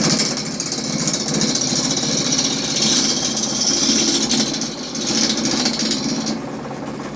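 Harbor Freight wood lathe running with a tool cutting into a spinning oak blank: a steady motor hum under a loud scraping hiss from the cut. The hiss stops about six seconds in while the lathe keeps running.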